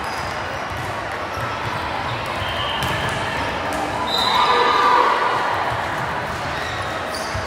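Indoor gym ambience during a volleyball match: many voices talking at once, with a volleyball being bounced and struck. The voices swell briefly about halfway through.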